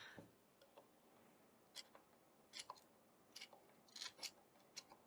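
Faint, scattered scrapes and clicks of wood as a stuck part of an old wooden sash window is prised and worked at, still catching and not coming free.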